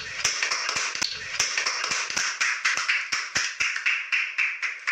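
A burst of group laughter with rapid, irregular sharp claps and slaps, several a second, from hands clapping and hitting a wooden table.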